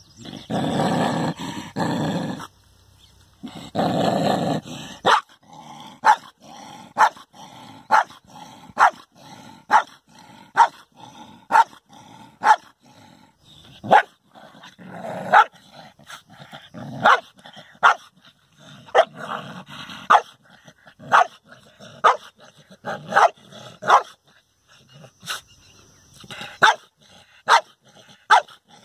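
A dog growling for the first few seconds, then barking sharply about once a second, snarling at its own reflection in a mirror.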